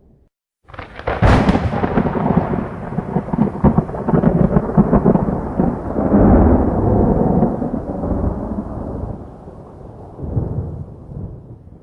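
Thunderclap: a sharp crack about a second in, followed by a long rolling rumble that slowly dies away, swells once more near the end and fades.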